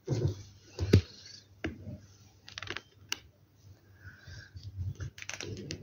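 Pokémon trading cards being handled and shuffled, sliding and flicking against one another in several short, uneven rustles and clicks; the loudest is about a second in, with another flurry near the end.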